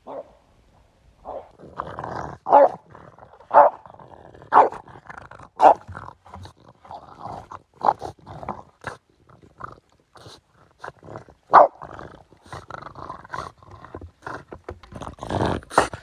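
French bulldog growling in short bursts about once a second as it worries a dead log. Near the end its teeth crunch and crackle on the dry wood.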